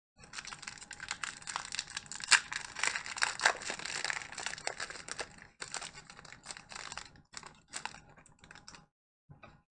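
Foil wrapper of a Pokémon TCG booster pack crinkling and crackling in the hands as it is torn open: a dense run of sharp crackles for about five seconds, then sparser crackles until near the end.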